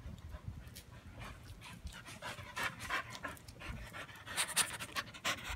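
Small dog panting hard in quick short breaths, getting louder toward the end.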